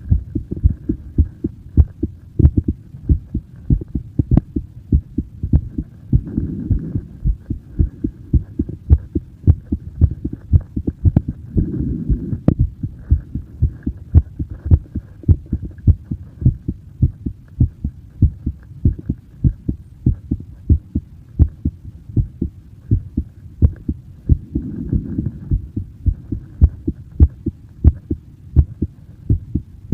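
A person's heartbeat: a steady rhythm of low, dull thumps that runs on without a break. A low rushing sound swells briefly behind it a few times.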